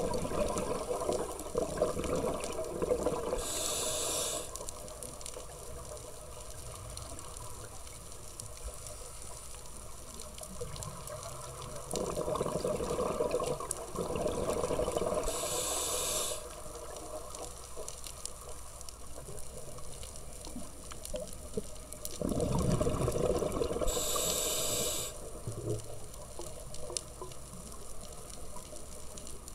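Scuba diver breathing through a regulator, heard underwater: three rounds of bubbling exhalation about ten seconds apart, each ending in a short hiss.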